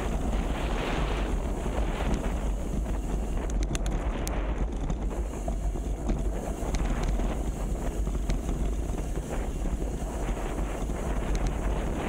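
Wind buffeting the microphone: a steady low rumble and rushing noise with no pauses.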